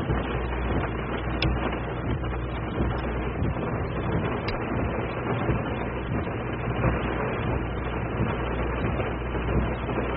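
Steady road and rain noise inside a moving car's cabin in heavy rain, over a low engine rumble, with a few faint ticks.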